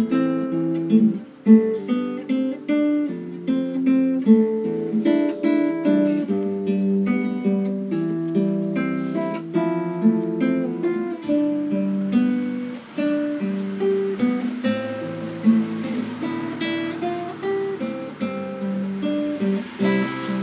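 Nylon-string classical guitar played fingerstyle: a slow plucked melody over bass notes.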